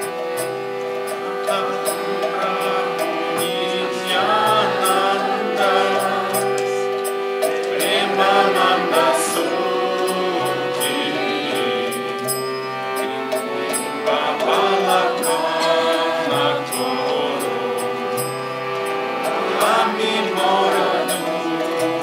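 Devotional bhajan sung by a male voice in chant-like phrases over a harmonium's sustained reedy chords. Hand cymbals (karatals) keep a steady ringing beat.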